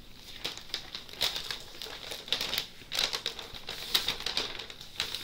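A rolled diamond painting canvas, with its plastic cover, crinkling and rustling as it is unrolled and flattened by hand: irregular crackles with a few sharper crinkles.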